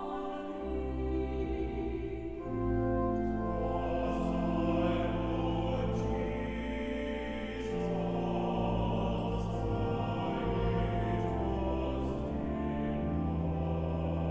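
Choral music: a choir singing slow, held notes over instrumental accompaniment with a deep bass line that comes in about half a second in.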